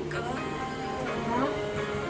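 Background music, with held tones and a pitch that slides upward near the middle.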